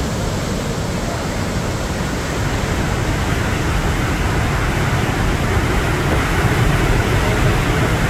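A wide waterfall in full flood, a steady, dense rush of water that is heaviest in the low end and swells slightly in the second half.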